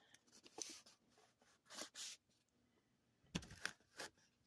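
Faint rustling and scraping of cardboard packaging being handled, in a few short bursts.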